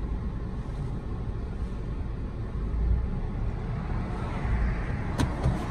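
Road and engine noise heard inside the cabin of a 2013 Honda CR-V driving slowly: a steady low rumble, with one sharp click about five seconds in.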